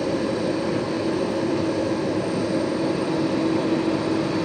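Boeing 767's twin jet engines running steadily at low power, a constant rushing hum with a steady low drone tone and faint high whines.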